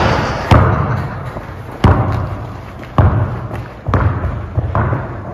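A basketball bouncing on a gym floor: a sharp knock at the start, then five loud thuds coming closer together, each echoing in the large hall.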